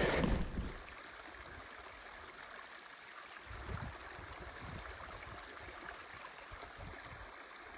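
Faint, steady rushing noise with a few soft low thumps.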